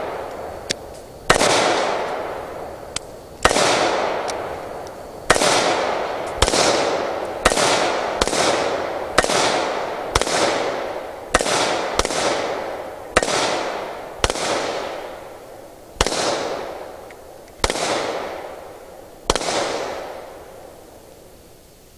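Two handguns firing about fifteen shots at an uneven pace, roughly one a second, each crack followed by a long echoing decay.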